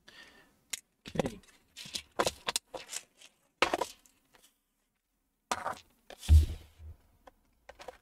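Handling noise of hand tools and a laptop's plastic case on a desk: an irregular string of clicks, taps and scrapes, the loudest a knock about six seconds in.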